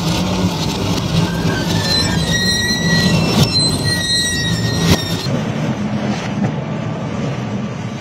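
Industrial twin-shaft shredder running with a steady low hum as its toothed rotors grip blue steel drums, metal squealing and screeching through the middle, and a sharp crack about five seconds in. After that the sound thins to the shredder's drive running.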